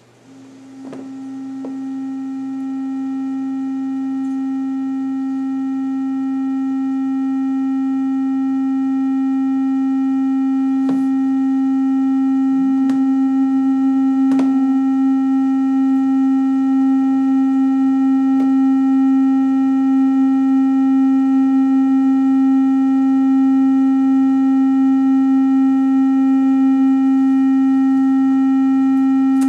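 Small portable electric organ holding one sustained drone note that swells in over the first couple of seconds and then stays steady. A fainter higher note joins about halfway through, with a few light key clicks.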